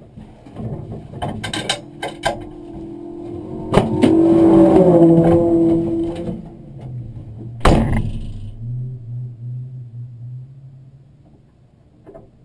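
Knocks, clicks and rustling from the crew unbuckling and climbing out of a stopped rally car's cabin. A loud steady hum runs for about two seconds in the middle. One heavy slam comes near eight seconds in, likely a door shutting.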